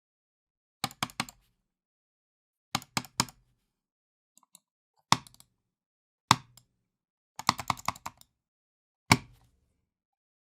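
Computer mouse being clicked hard and angrily in bursts: quick triple clicks, single heavy clicks, and a rapid flurry of about eight clicks near the end, each with a dull knock against the desk.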